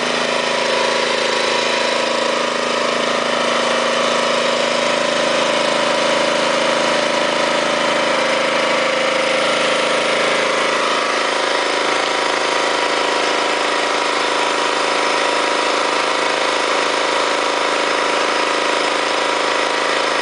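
Engine of a truck-mounted well rig running steadily at a constant speed, a continuous hum with no change in pace.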